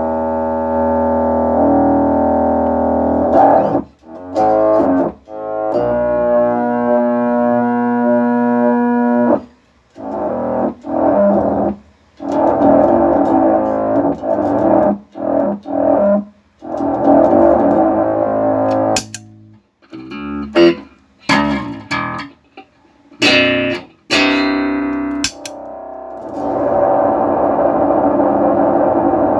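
A plucked string instrument played through an Electro-Harmonix Bass MicroSynth synthesizer pedal, giving sustained, distorted synth notes in short phrases with brief silences between them. The pedal is producing sound again after its shorted SMD chips were replaced.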